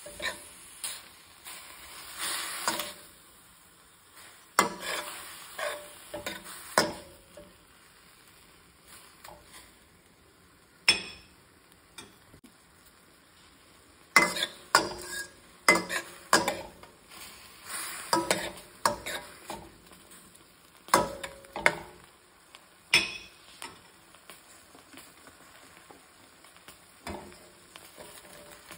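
Metal spatula scraping and knocking against a stainless steel pan as diced bell peppers and celery are stir-fried without oil, over a faint sizzle. The scraping comes in irregular bursts with quieter pauses between them.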